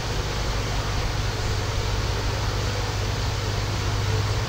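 Steady fan-like machinery hum with an even hiss, unchanging throughout.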